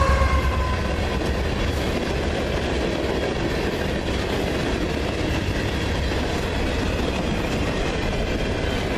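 Train rolling past on the Norfolk Southern line: a steady rumble of the rail cars on the track. The tail of a horn blast fades out right at the start.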